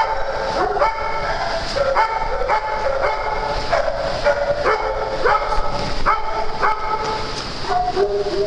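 Several puppies yapping and whining over one another, a new call starting about twice a second.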